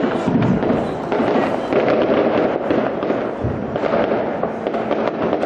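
Fireworks going off all around: a dense, continuous crackle of many overlapping pops and bangs with no let-up.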